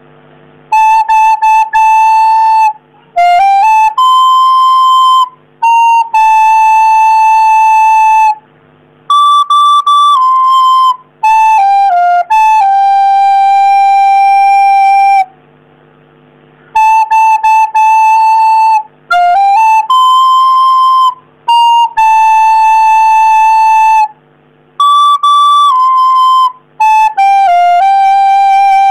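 Recorder playing a campursari melody in phrases of repeated and held notes with short stepping runs between them, separated by brief pauses. The whole tune is played twice.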